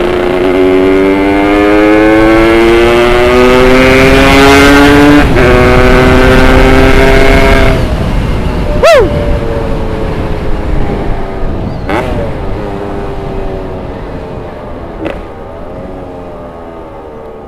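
Tuned Yamaha RX Special 115 two-stroke single-cylinder engine accelerating hard, climbing in pitch through two upshifts. About eight seconds in the throttle closes and the engine note falls and fades, broken by three short throttle blips.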